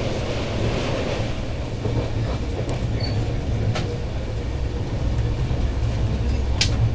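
Express train running at speed, heard from inside a passenger coach: a steady low rumble of wheels on track, with a few sharp clicks, the loudest near the end.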